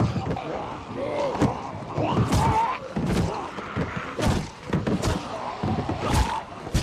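A violent struggle: heavy thuds and slams about once a second, with short grunts and growls between them.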